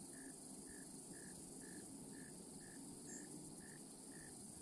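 A cricket chirping faintly and steadily, about two even chirps a second.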